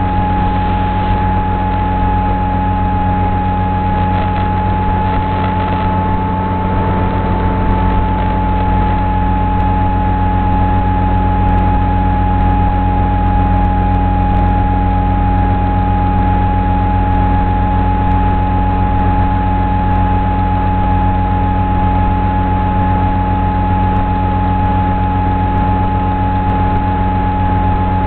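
Electric motor and propeller of an FPV flying wing running at steady throttle: a constant whine over a low hum, its pitch lifting slightly about seven seconds in and then settling back.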